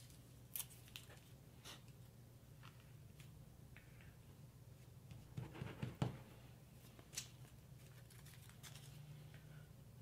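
Faint rustles and soft taps of torn paper pieces being handled and pressed down onto a paper collage by hand, a few scattered sounds with a small cluster past the middle, over a low steady hum.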